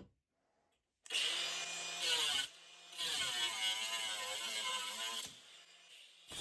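Angle grinder motor running in a homemade multi-purpose jig, starting about a second in, its pitch wavering as it works and its level dropping briefly twice.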